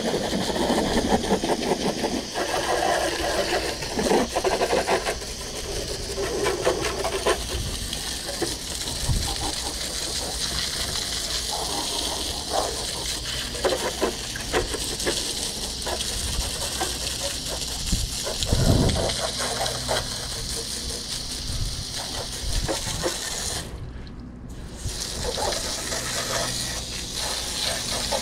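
Garden hose pistol-grip spray nozzle jetting water onto a zero-turn mower, a steady hiss with splashing off the deck and body. It breaks off for about a second near the end, then resumes.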